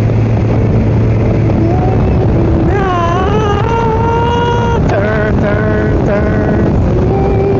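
Honda Goldwing's flat-six engine running at steady highway cruising speed, a constant low hum under wind and road noise. Through the middle a few held, sliding pitched notes sound over it.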